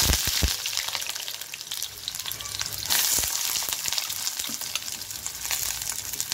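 Chopped onions sizzling in hot oil in a stainless steel kadai, a steady frying hiss flecked with crackles. It is loudest at the start, just after they go in, and swells again about three seconds in.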